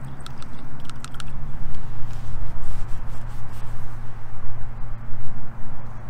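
Steady low hum of road traffic over a rough, uneven low rumble, with a few light clicks in the first second.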